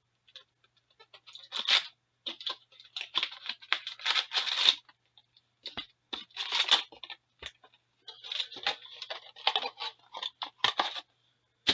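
Plastic packaging crinkling and tearing in irregular bursts as a sealed box of trading cards is unwrapped and opened by hand.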